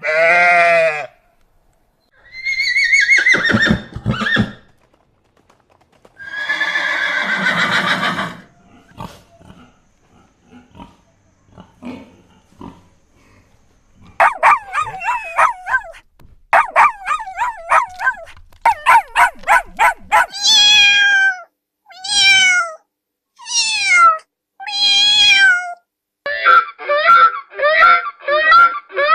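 A sequence of different animals' calls played one after another with short pauses, changing from one kind of animal to the next: falling cries, quiet grunts, rapid pulsed calls, and fast repeated calls near the end.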